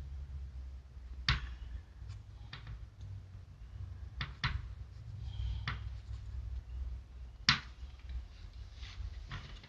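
Scattered light knocks and clicks of small items being handled against a wooden cabinet, about seven in all and irregularly spaced, over a low steady hum.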